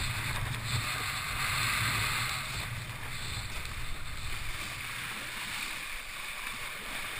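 Water rushing and hissing under a windsurf board sailing at speed, with wind buffeting the rig-mounted microphone in a low rumble.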